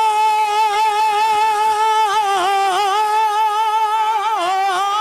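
A male Sufi kalam singer holds one long high note, wavering slightly, with brief dips in pitch near the middle and again near the end.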